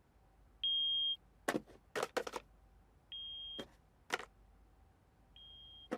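Hearing-test beeps: three short steady high tones, each quieter than the one before. Light knocks follow the first two beeps as toy blocks are dropped into a bucket in answer; no knock follows the last, quietest beep.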